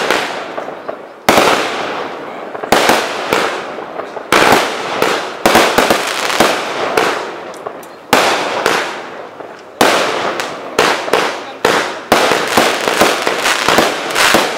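Aerial fireworks shells bursting in quick succession: sharp bangs about once a second, each dying away in a spray of smaller crackles.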